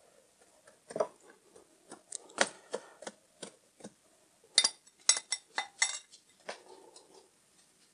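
Irregular clinks and taps of a metal spoon and a stainless-steel spice shaker knocking against each other and a glass bowl, with a quick run of clinks just past the middle.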